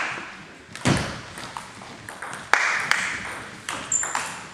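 Table tennis rally: the ball clicking off the rackets and bouncing on the table at irregular intervals of about a second, each hit echoing briefly in the sports hall, some with a low thump. A short high squeak comes about four seconds in.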